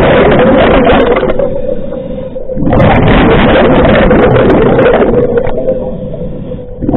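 Scuba diver's breathing heard underwater through the regulator. Loud bubbling exhalations alternate with quieter inhalation pauses: one exhale ends about a second in, the next lasts about three seconds, and a third starts near the end. A steady hum runs underneath.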